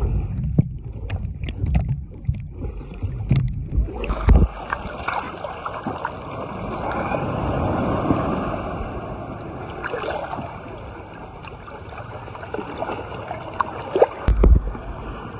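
Water sloshing and splashing, swelling up and washing through in the middle, with several sharp knocks in the first few seconds and again near the end.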